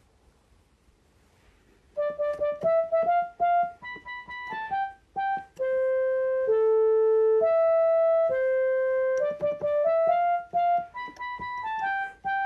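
Electronic keyboard playing single notes in a simple, mostly stepwise melody, starting about two seconds in after near silence; several notes are held long at an even level without dying away.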